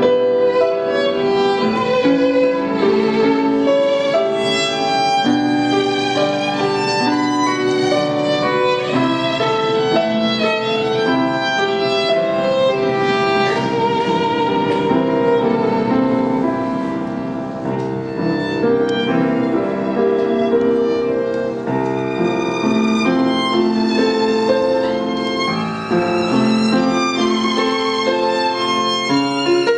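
Violin and grand piano playing classical chamber music live: the bowed violin carries sustained notes with vibrato over piano accompaniment.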